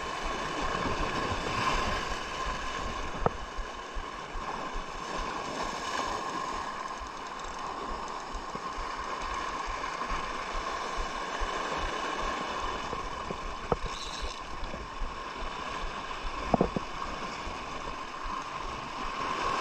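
Seawater rushing and gurgling steadily along a rocky shore, with a few sharp clicks in the second half.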